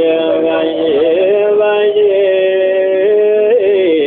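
Ethiopian menzuma devotional singing: a male voice holds long, drawn-out notes. The pitch steps down about a second in and rises again near the end.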